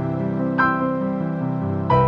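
Soft background music: gentle piano-like notes struck slowly over sustained low tones.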